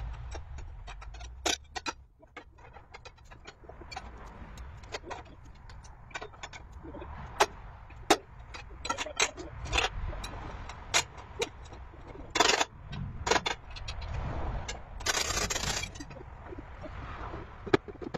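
Scattered metallic clinks and knocks from work on a steel lattice mast, with a longer scrape about three-quarters of the way through, over a low rumble.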